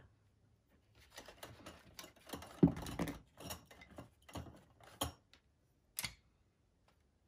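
Paper card panel and ribbon being handled: an irregular run of rustles, taps and small clicks, loudest about two and a half seconds in, stopping about six seconds in.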